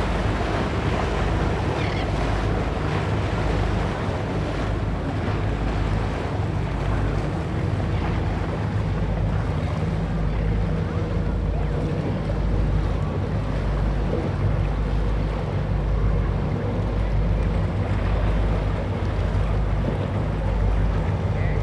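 Boat engines running with a steady low hum, over the wash of surf and wind buffeting the microphone.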